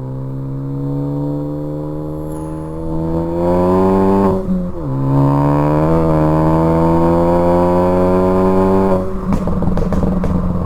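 Tuned 2014 Ford Focus ST's turbocharged four-cylinder, breathing through a catless downpipe and Cobb cat-back exhaust, revs up hard through a gear. About four and a half seconds in, the revs drop sharply for a quick upshift, then climb again. Near the end the driver lifts off, and the exhaust lets out a rapid string of pops and crackles on the overrun from the tune.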